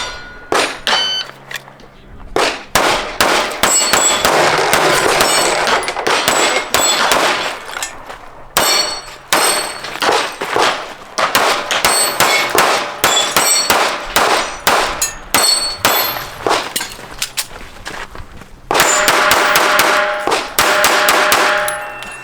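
Steel targets clanging and ringing, many sharp metallic hits in quick succession, with a longer ringing stretch near the end.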